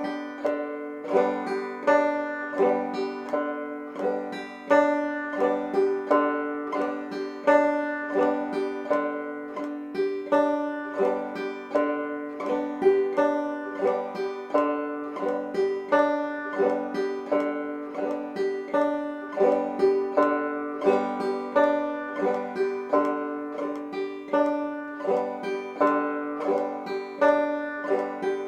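Five-string banjo played clawhammer style: the basic frailing strum repeated on open, unfretted strings at a steady medium tempo, each stroke ringing into the next.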